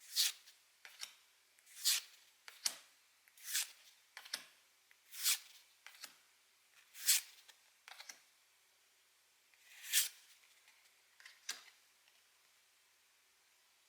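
Pokémon trading cards slid one at a time off the top of a stack, a short papery swish about every second and a half to two seconds with soft card clicks between; the swishes stop a couple of seconds before the end.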